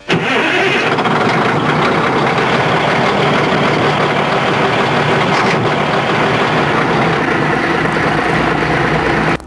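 Yanmar compact excavator's diesel engine running loud and steady, stopping abruptly near the end.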